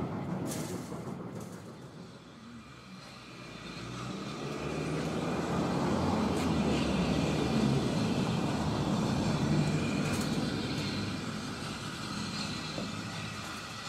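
Railway locomotive rumbling. The sound dies down to its quietest about two seconds in, then a low, steady rumble builds from about four seconds as the locomotive draws slowly closer.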